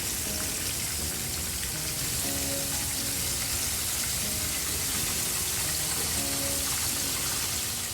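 Flour-dusted chicken thighs and wings frying in hot oil, a steady sizzle, with soft background music.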